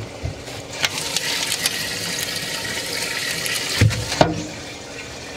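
Water splashing and sloshing for about three seconds, ending in two sharp knocks.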